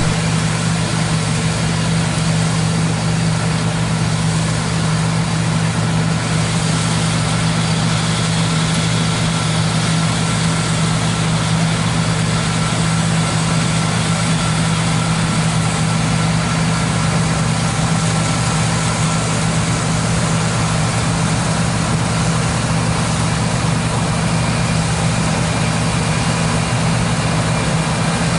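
John Deere T670i combine harvester running steadily under load while harvesting winter wheat: an even, unbroken machine drone.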